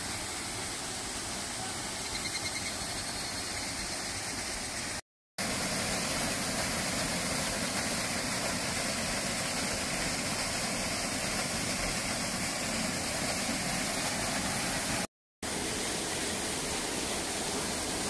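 Waterfall pouring over rocks into a pool: a steady rush of falling water, broken twice by brief gaps of silence.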